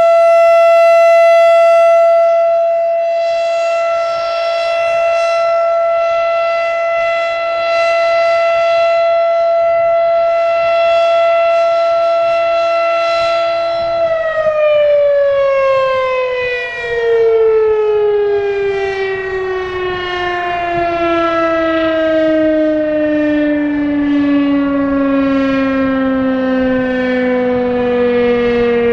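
Federal Signal RSH-10 Thunderbeam rotating outdoor warning siren sounding a steady tone that swells and fades every couple of seconds as it rotates. About halfway through it is shut off and winds down, its pitch falling steadily to the end. Wind rumbles on the microphone underneath.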